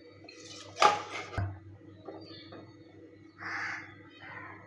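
Quiet kitchen handling sounds: a sharp click about a second in and a low thud soon after, then a short harsh, noisy sound past the middle.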